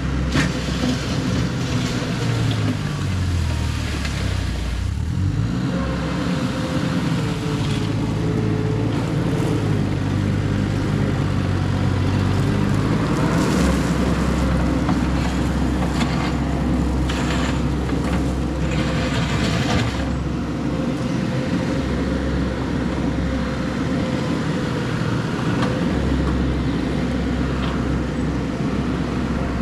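Mini skid steer's engine running while it works gravel, its pitch rising and falling through the first dozen seconds and then running steadier.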